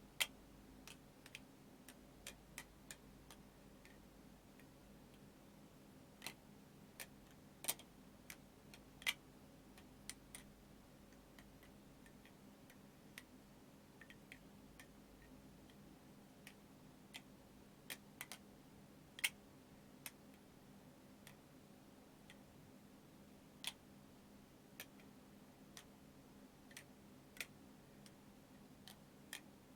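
OSP Matrix balisong being flipped: irregular sharp metallic clicks as the handles swing around and knock against the blade's tang pins and each other, a few clearly louder than the rest. A faint steady low hum sits underneath.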